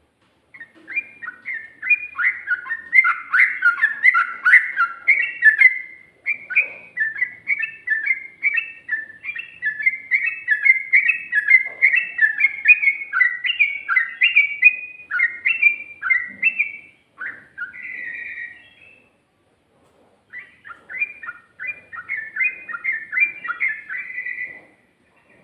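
Yellow-vented bulbul singing a fast, run-on song of quick notes, in long rolling phrases broken by a short pause and a single drawn-out note before a last burst.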